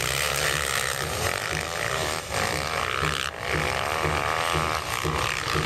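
Several dirt bike engines running together, their pitch wavering up and down as the riders rev and let off.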